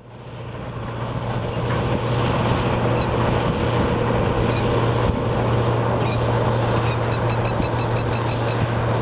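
Narrow-gauge diesel locomotives hauling a freight train of cement tank containers past, the engines giving a steady low throb over the rumble of the train rolling on the rails. The sound builds over the first couple of seconds as the locomotives come into view, then holds steady as the wagons roll by.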